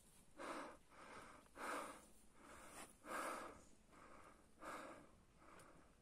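Cow moose breathing and sniffing at close range: a regular run of quiet, airy breaths, louder puffs about every second and a half alternating with softer ones.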